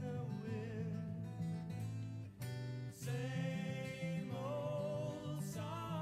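Background music: a song with a singing voice over acoustic guitar and a steady bass line.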